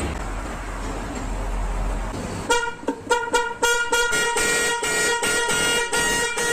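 Steady vehicle rumble, then from about two and a half seconds in a car horn sounding in a rapid series of short honks, all at one steady pitch.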